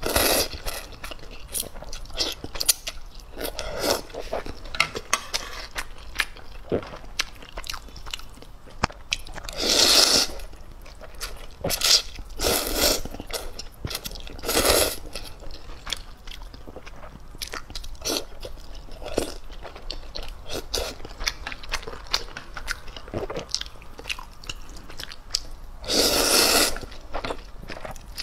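Close-up slurping and chewing of instant ramen noodles: wet chewing with many small clicks, broken by four longer, louder slurps, the last near the end.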